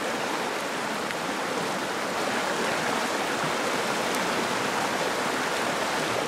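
Steady rushing of a creek's running water, an even wash of noise with no breaks.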